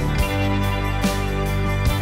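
Background music led by guitar, with a regular beat.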